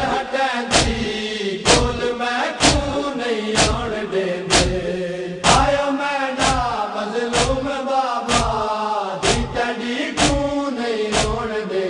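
Male voices chanting a Punjabi noha (Shia lament) in unison, with a sharp thump of matam chest-beating about once a second keeping the beat.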